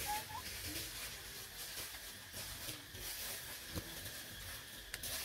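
Young macaques moving about in thin branches: faint rustling, a short rising squeak just after the start, and two sharp clicks in the last second and a half.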